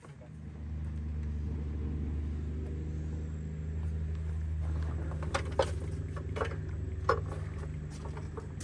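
A motor starts up and runs with a steady low hum, with a few sharp knocks about five to seven seconds in.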